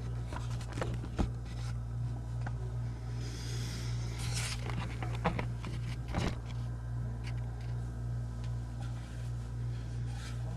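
Steady low electrical hum, with a few sharp clicks and a short rustle a little after three seconds in.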